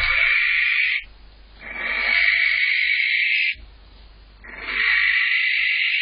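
Barn owl giving three long, harsh screeches, each one to two seconds long with short gaps between them: the call of a barn owl calling for a mate.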